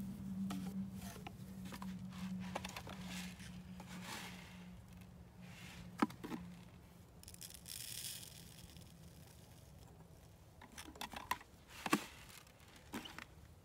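Faint handling sounds of a PVC pipe vole bait station and a plastic bait tub: scraping and rustling, with a few sharp clicks, the loudest about halfway through and near the end as bait is poured from the tub into the upright riser pipe. A low steady hum runs through the first half.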